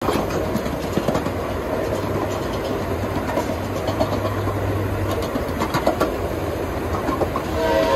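Ridable miniature live-steam train rolling along the track, its wheels clicking and clattering over the rail joints. Near the end, the steam locomotive's chime whistle starts to blow, several notes at once.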